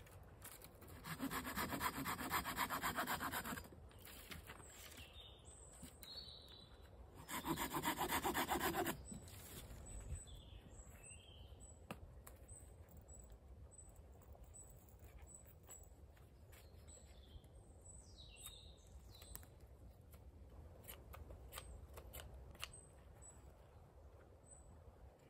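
Small hand saw cutting through dead wood in two bouts of quick back-and-forth strokes. The first bout starts about a second in and lasts about two and a half seconds; the second, about seven seconds in, is shorter.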